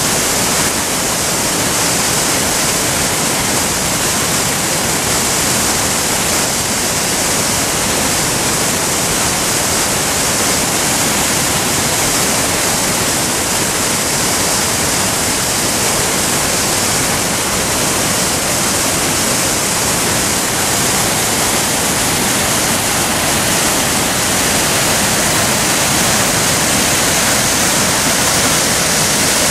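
Steady, loud rush of the Chutes Sainte-Ursule waterfalls on the Maskinongé River: a continuous hiss-heavy roar of falling water with no change in level.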